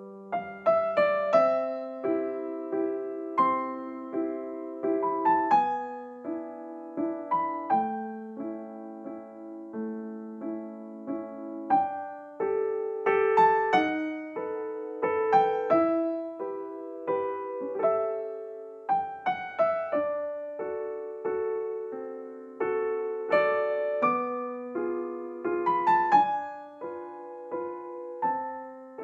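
Background music: a gentle electric piano melody with chords, notes struck and left to fade.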